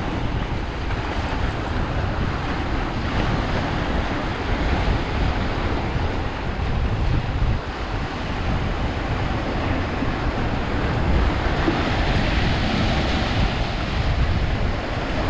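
Small waves washing and breaking over a rocky shore, with wind buffeting the microphone, steady throughout.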